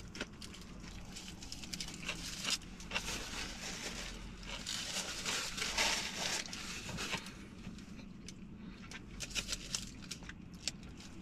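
Foil wrapper crinkling in swells while a burrito is eaten, with scattered small sharp clicks, thinning out toward the end.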